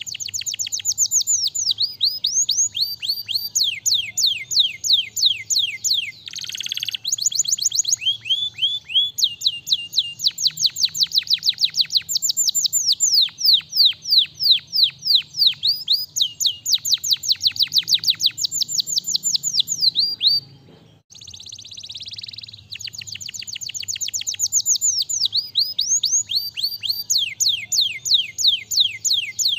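Domestic canary singing a long, loud song of fast trills, each a rapid run of down-sweeping whistled notes, the trills changing speed and pitch one after another. The song breaks off briefly about two-thirds of the way through, then resumes.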